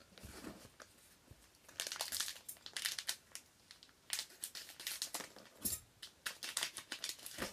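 Trading card pack wrappers being torn open and crinkled by hand, in several short bouts of crackling and rustling.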